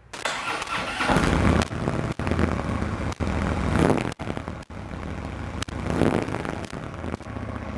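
Harley-Davidson 2014 Ultra Limited (FLHTK) Twin-Cooled Twin Cam 103 V-twin on its stock exhaust, fired up and running. It gets louder about a second in and is revved a few times, with surges at about four and six seconds.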